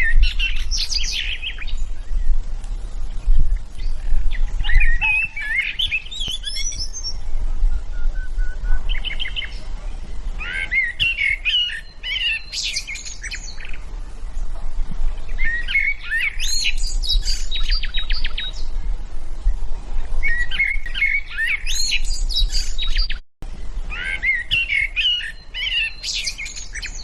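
Songbird song: warbling phrases of chirps and rapid trills, repeated about every five seconds, over a steady low hum. The sound cuts out briefly a little before the end.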